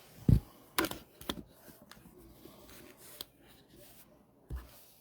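Handling noises on a table: a dull thump, a few sharp clicks and taps, then another dull thump near the end.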